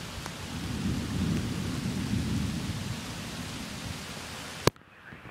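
Low rumble of thunder over steady rain, swelling about a second in and dying away by about three seconds. Near the end a single sharp click, after which the rain hiss drops abruptly.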